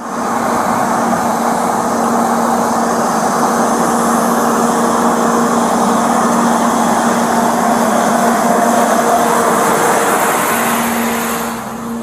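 Fire engine's engine running steadily: a loud drone with a constant low hum through it, easing off in level near the end.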